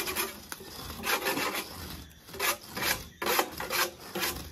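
Cement render being scraped and spread onto a masonry wall by hand, in a series of short rasping strokes.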